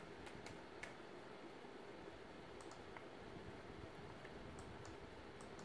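Faint, irregular clicking of a computer mouse, about ten small clicks over a low steady room hiss.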